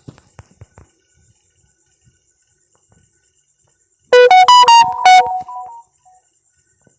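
Loud short electronic-keyboard jingle about four seconds in: a quick run of a handful of bright notes, ending on one note that rings on and fades. A few faint clicks come before it.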